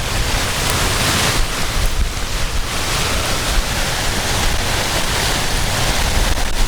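Strong storm wind buffeting the microphone with a steady rumble, under a dense hiss of wind-driven rain.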